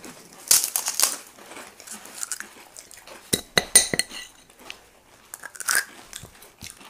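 Crisp fuchka (pani puri) shells crunching as they are bitten and chewed. A few ringing clinks of a spoon against a dish come about three and a half seconds in.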